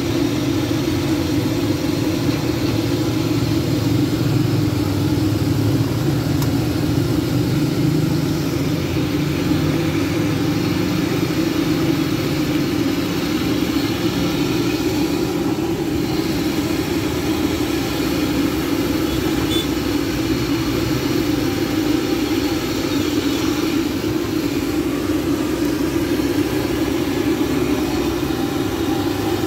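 Gas burners running steadily under large woks of deep-frying oil, a constant low roar with the hiss of chicken frying over it.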